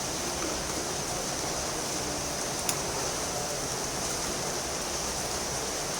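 Steady hiss of background noise, with a single small click about two and a half seconds in.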